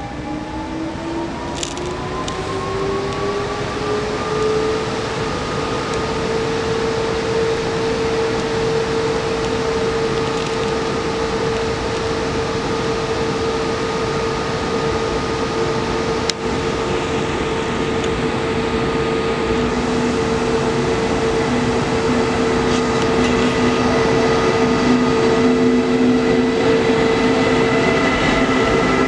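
Czech Railways (ČD) electric locomotive and its coaches arriving slowly at an underground platform, growing louder as it nears. A steady electric whine rises in pitch over the first few seconds and then holds, over the rumble of wheels on rails, with a single sharp click about halfway through.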